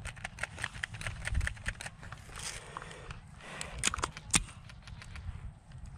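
Footsteps crunching through dry grass and brush, a quick run of irregular clicks and rustles that thins out, with two sharper snaps about half a second apart near the middle.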